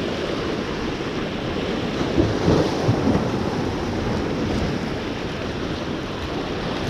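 Sea surf washing against a rock jetty, with wind on the microphone; it swells a little louder for a moment about two seconds in.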